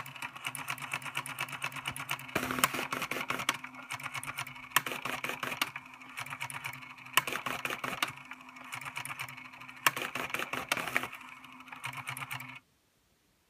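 Sega SP-400 plotter printer (ALPS pen-plotter mechanism) running its power-on self test: its stepper motors buzz and rattle as they drive the pen carriage and paper, with a sharp click every two to three seconds. It starts abruptly at switch-on and cuts off suddenly near the end.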